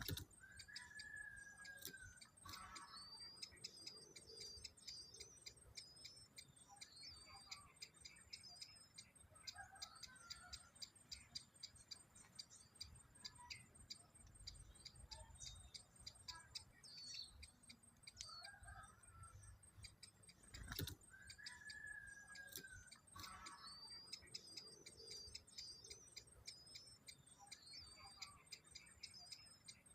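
Faint birdsong: a short, high twittering phrase repeated over and over, with a few lower falling whistles in between. Two sharp taps are heard, one at the start and one about two-thirds of the way through.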